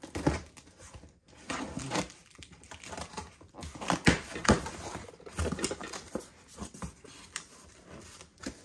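Cardboard box being opened by hand: a key slitting the packing tape, then the cardboard flaps scraping and rustling as they are pulled open, with irregular knocks and rustles throughout, loudest about four seconds in.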